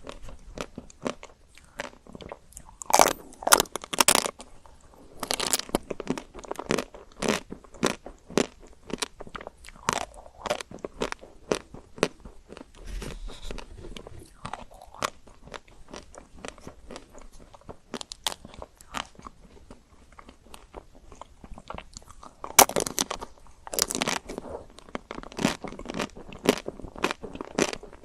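Close-miked biting and chewing of chocolate-coated ice cream, the hard chocolate shell cracking in crisp crunches. There are louder bursts of crunching about three seconds in, again around five seconds, and again near the end, with quieter chewing and crackling in between.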